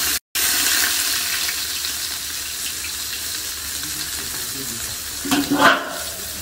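Sliced onions sizzling in hot oil in a large aluminium cooking pot: a steady frying hiss that eases slightly over the seconds. A short burst of voice comes near the end.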